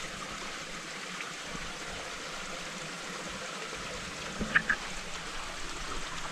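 Small stream flowing steadily. About four and a half seconds in, two short, sharp sounds stand out above the water.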